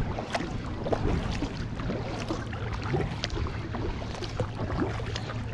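Kayak paddling: paddle blades dipping and water splashing and dripping in irregular small splashes, over a steady low hum.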